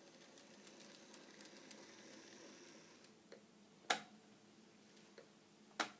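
N gauge model electric locomotive and wagon running slowly along the track, a faint patter of small ticks and a light whine, with two sharp clicks near the end, about two seconds apart.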